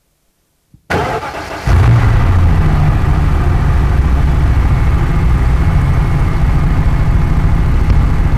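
Loud, distorted electronic noise music from a laptop and mixer over the PA, part of a piece that takes rock music apart. It cuts in suddenly about a second in, and a heavy, churning low rumble joins under it a moment later and holds steady.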